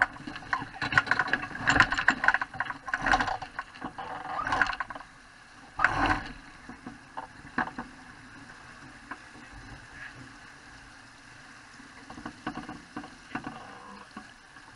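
Wayfarer sailing dinghy under way: water slapping and rushing along the hull. Rapid knocks and clicks from the boat come through the first few seconds, with one louder slap about six seconds in, then a quieter steady wash with occasional knocks.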